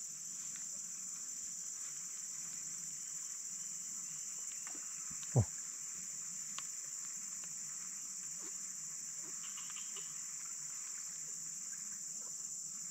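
Steady high-pitched insect drone, with one short, loud sound that falls in pitch about five seconds in.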